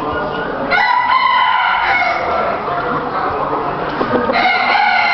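Roosters crowing: one long crow begins about a second in and another starts near the end.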